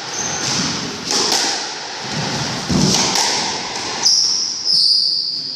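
Squash rally: several sharp hits of the ball on rackets and walls, about one a second, with court shoes squeaking on the wooden floor. A long squeal starts about four seconds in.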